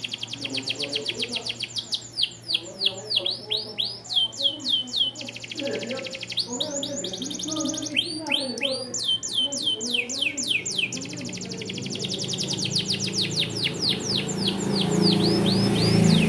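Small standard AF canary singing: a long song of fast, evenly repeated trills and rolls, with sweeping notes, switching from one trill to the next every second or two.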